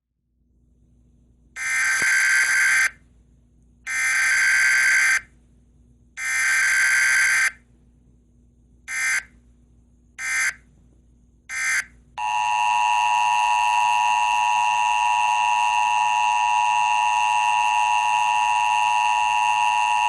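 Emergency Alert System broadcast tones from an EAS simulator app. Three long buzzing data bursts (the SAME header) are followed by three short bursts. Then comes the steady two-tone attention signal, held for about eight seconds.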